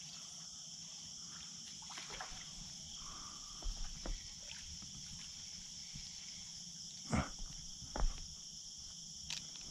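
Steady high-pitched insect chorus, with a few short sharp knocks about three and a half to four seconds in and again twice near seven to eight seconds.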